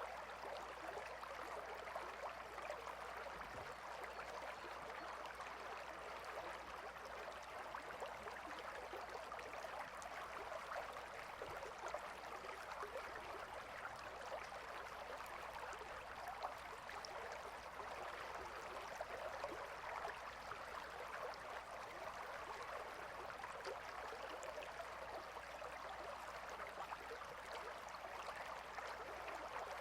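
Gentle river flowing: a soft, steady rush of running water.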